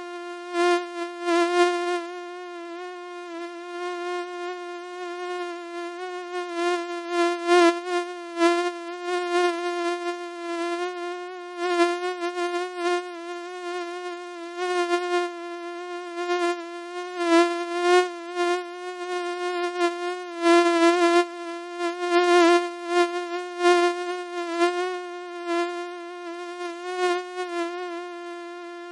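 Mosquito buzzing close to the ear: a steady high whine that swells and fades again and again as it moves near and away.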